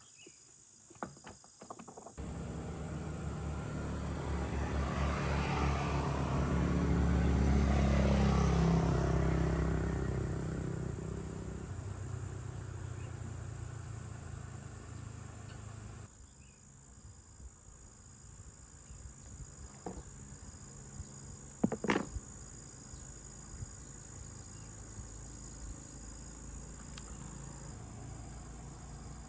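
A motor's low hum starts abruptly, swells to a peak and fades, then cuts off, against a steady background of crickets chirping. A few sharp clicks come later.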